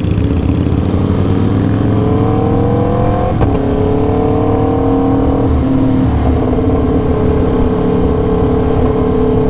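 Aprilia Tuono V4 1100 Factory's 65-degree V4 engine through an SC Project CR-T exhaust, accelerating through the gears: the revs climb, drop sharply at two quick upshifts about three and a half and five and a half seconds in, then hold steady at cruise, with wind noise underneath.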